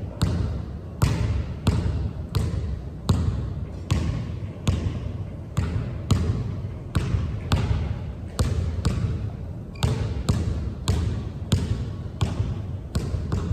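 A basketball being dribbled hard on a court, bouncing about twice a second in a steady rhythm. Each bounce is a sharp smack followed by a short ringing echo.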